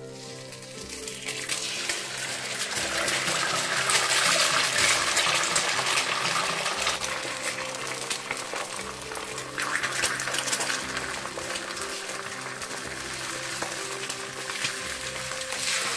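An egg frying in hot vegetable oil in a stainless steel pan: a sizzle and crackle that swells about a second in as the egg hits the oil, then carries on steadily.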